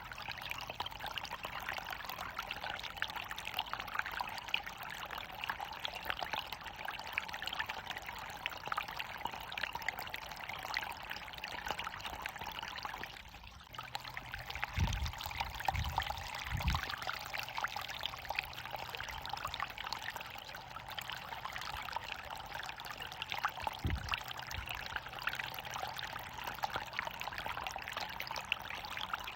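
Waterfall water running and splashing steadily, a dense hiss that dips briefly about halfway through. A few dull low thumps come in the second half.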